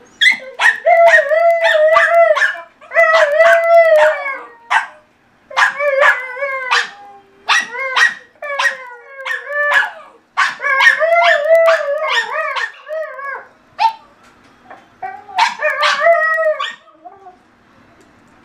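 A dog howling in several long, wavering bouts of high-pitched yowls, broken by short yips.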